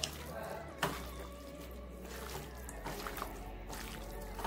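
Hand mixing raw chicken pieces into a yogurt marinade in a steel pot: wet squelching and squishing, with a few sharp clicks of pieces knocking the pot.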